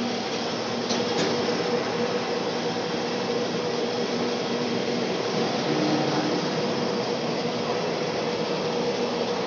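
Steady mechanical drone with an even hum: an airport shuttle bus idling at its open door, engine and air conditioning running.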